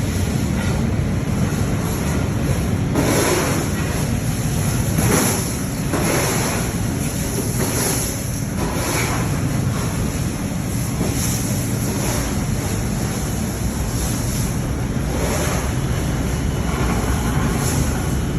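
Scrap-aluminium melting furnace burning with a steady low rumble. Irregular swells of hiss rise and fall every second or two.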